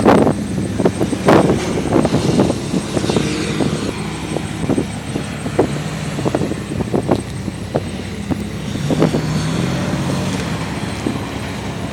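Toyota Land Cruiser 70-series short-wheelbase engine running, its revs rising and falling, with many irregular sharp knocks and thumps.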